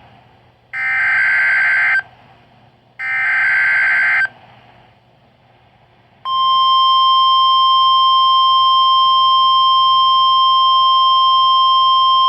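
NOAA Weather Radio alert: the last two of three harsh, buzzy SAME data bursts, each about a second long with a second's gap between, then, about six seconds in, the loud, steady, single-pitched warning alarm tone. It signals the start of a tornado warning.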